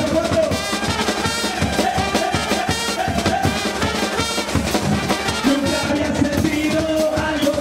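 Charanga brass band playing: trumpets, trombones and saxophones over a marching bass drum and snare keeping a steady beat. Near the end the horns hold longer notes.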